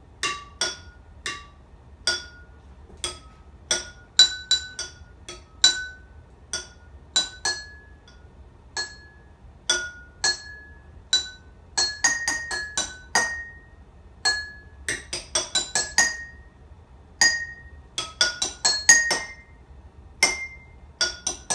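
Glass jars filled with different amounts of water struck one at a time with a metal spoon, playing a tune: a string of ringing clinks at changing pitches. Single notes come at first, then quicker runs of notes through the middle and near the end.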